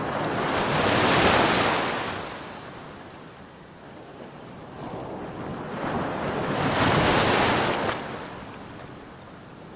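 Ocean surf: two waves swelling in and washing back, about six seconds apart, each rising and fading over a few seconds.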